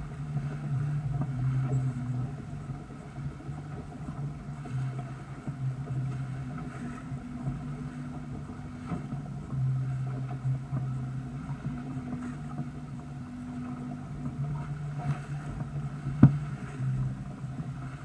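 Sailboat under way through choppy water: water rushing and splashing along the hull, with a steady low hum underneath and one sharp knock near the end.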